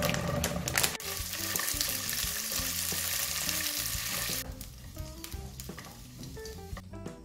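Vienna sausages tipped into a hot nonstick frying pan, clicking as they land, then sizzling loudly while stirred with wooden chopsticks. The sizzling cuts off about four and a half seconds in, leaving soft background music.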